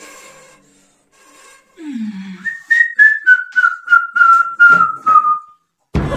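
A whistle held for about three seconds, sliding slowly down in pitch, with a sharp click about three times a second over it.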